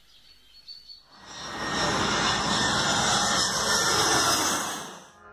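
Twin-engine jet airliner passing low overhead on landing approach: its engine noise swells in about a second in, holds loud for about three seconds, then fades and cuts off near the end.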